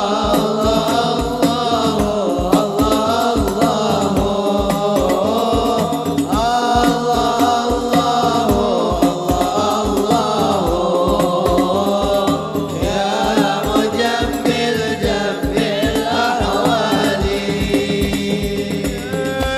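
Sholawat sung to the beat of a hadroh ensemble of frame drums and bass drums keeping a steady rhythm.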